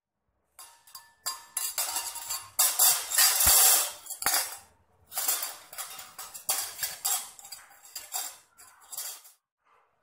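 Kitchen utensils clattering: metal cutlery and dishes knocking and rattling together in irregular bursts of sharp strikes with some ringing, starting about half a second in.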